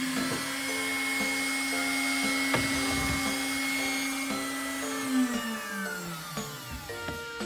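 CNC router spindle spinning at a steady high speed, then winding down with a smoothly falling whine about five seconds in as the spindle stops at the end of the cut.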